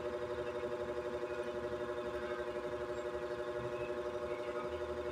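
A steady hum of a few held tones over a low drone, like a small motor running, with a faint even pulsing in loudness.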